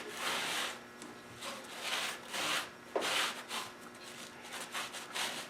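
A cloth rag wiping back and forth over the wet sandpaper on a drum sander's drum, drying off the mineral spirits used to loosen the pitch build-up. A series of short rubbing strokes, fainter in the second half.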